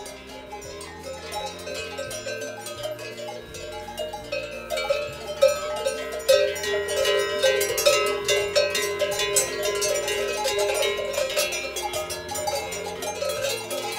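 Cowbells clanking and ringing on cattle moving their heads while feeding, the strikes getting busier and louder about five seconds in.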